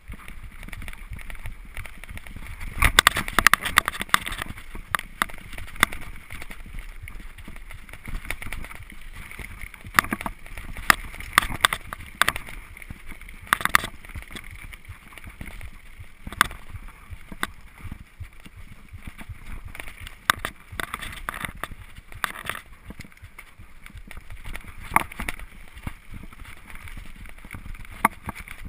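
Gary Fisher HiFi Pro Carbon full-suspension mountain bike rolling fast down rough, wet dirt singletrack: steady tyre and trail noise with repeated rattles and knocks as the bike hits bumps and roots. There is a dense run of clatters about three seconds in and further bursts through the ride.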